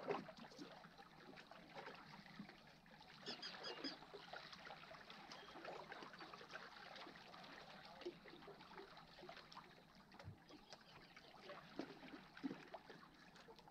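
Faint water lapping and trickling among shoreline rocks, with a brief run of high chirps about three seconds in.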